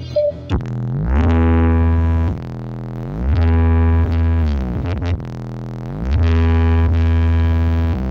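Loud electronic music from a big sound system, a synthesizer line over very heavy deep bass. The bass cuts in about a second in, drops out briefly twice, and the tones slide down and up in pitch between the sections.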